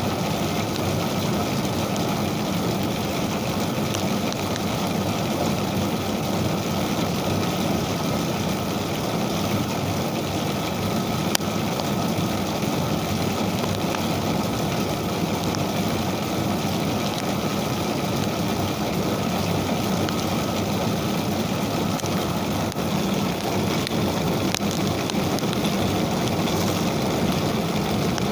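Ijuk (sugar palm fibre) combing machine running steadily, a continuous mechanical drone with a wide hiss over it.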